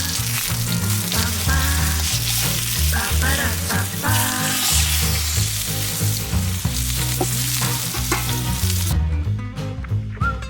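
Food frying in hot fat, a dense steady sizzle that cuts off suddenly about nine seconds in, over background music with a steady bass line.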